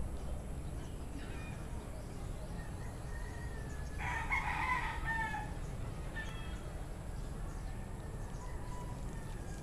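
A rooster crowing once about four seconds in, a call of a little over a second that drops in pitch at the end. Fainter, shorter calls come before and after it.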